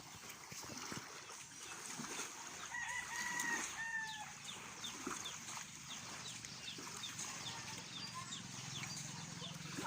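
A rooster crowing once, a call of about a second and a half about three seconds in. Later comes a rapid run of short, high chirps, about three a second.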